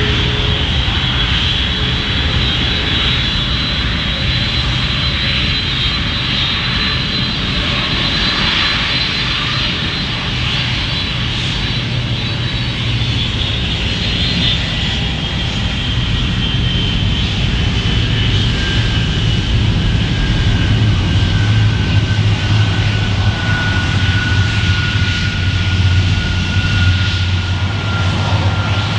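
The Rolls-Royce RB211-524 turbofans of a Boeing 747-400 running with the airliner on the ground: a steady jet roar with a high whine over it. The whine slowly falls in pitch, and a low rumble underneath grows stronger in the second half.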